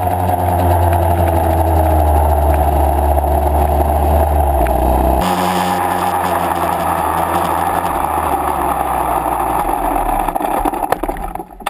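Yamaha YZ125 single-cylinder two-stroke engine running steadily as the dirt bike is ridden. The sound changes abruptly about five seconds in and fades near the end.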